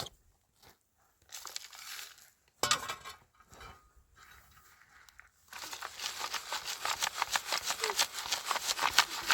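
Soil being sifted through a sieve: a few crackling rustles and a sharp knock, then from about five and a half seconds in a fast rhythmic scraping of grit on the mesh, several strokes a second.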